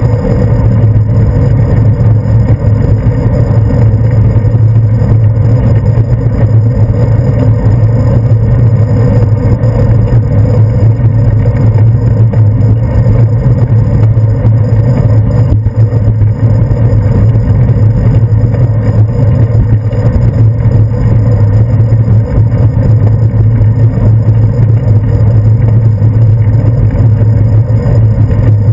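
Steady, loud low rumble of wind and road vibration picked up by a handlebar-mounted GoPro Hero 2 while riding a bicycle.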